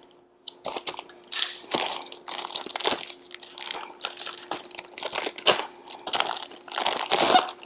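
Plastic packaging crinkling and crackling in irregular bursts as it is handled and pulled open by hand.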